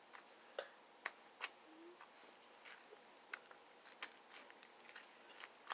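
Slime being squished and stretched by hand, giving faint irregular wet clicks and pops, a few a second.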